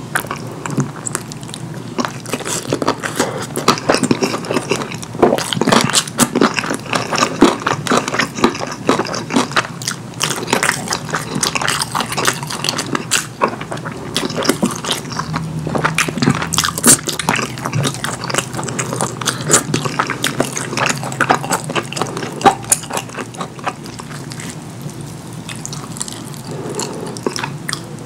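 Close-miked wet chewing and biting of curry food, with many irregular mouth clicks and smacks.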